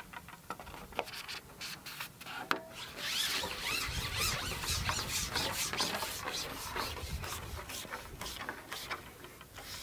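Long carbon fishing pole rubbing and scraping as it is slid out to place the groundbait cup, with a few light clicks in the first seconds and the rubbing loudest in the middle.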